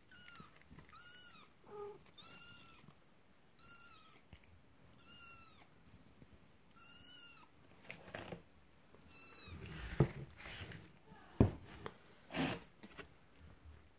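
Hungry three-week-old kittens meowing: about seven short, high-pitched cries a second or so apart. A few sharp thumps follow from about ten seconds in, and these are the loudest sounds.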